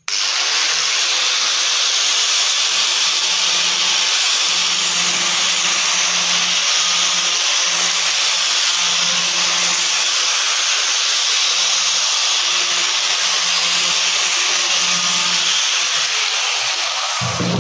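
Angle grinder with a sanding disc running steadily as it sands a pine box, with a low hum that comes and goes as the disc presses on the wood. It starts abruptly and cuts off shortly before the end.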